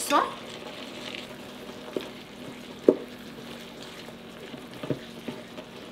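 Pork chorizo sizzling as it fries in a skillet with sautéed onion, tomato and pepper, while a wooden spoon stirs and breaks it up. A clatter as the chorizo goes into the pan at the start, then a few light knocks of the spoon against the pan.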